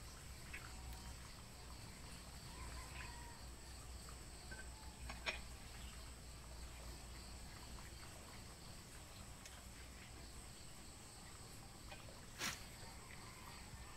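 Steady, faint chirring of crickets and other insects with a constant high tone. Two short, sharp clicks cut through it, about five seconds in and again near the end.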